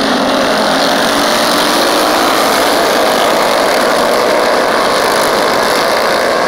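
Several mini bike engines racing together at high revs, a loud, steady mix of small engines with no single clear pitch.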